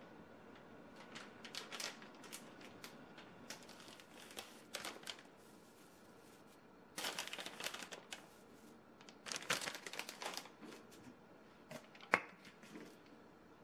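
Dried bonito flakes (katsuobushi) being tossed and mixed with boiled bitter melon in a glass bowl: several bursts of dry, papery rustling, with one sharp tap near the end.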